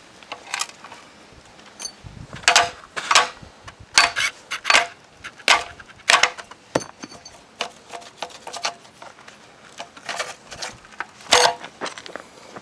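Metal parts of a jackhammer-smashed hard drive clinking and knocking as they are pried apart, each strike with a short metallic ring, irregular at about one or two a second.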